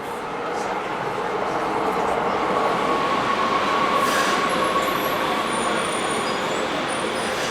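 Subway train running through a metro station, its rumble growing louder over the first few seconds and then holding steady, with a steady tone throughout the middle and thin, high wheel squeals from about four seconds in.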